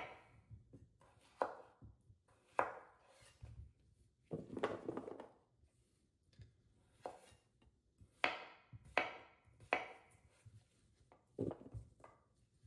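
A kitchen knife cutting small Yukon Gold potatoes on a wooden cutting board, with irregular knocks of the blade on the board. Cut pieces are dropped onto a metal sheet pan.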